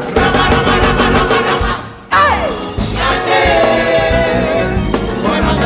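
Live gospel worship band (keyboard, drums, guitars) playing with a singer's voice over it, the voice holding notes and sweeping down in pitch a couple of times.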